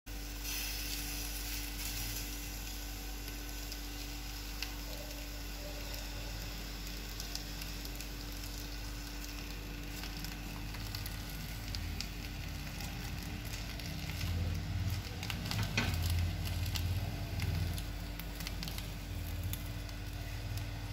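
Cabbage leaves sizzling and crackling on a hot sizzler plate over a gas burner, a steady hiss with scattered pops. A few soft knocks of the leaves being handled and pressed onto the plate come about two thirds of the way through.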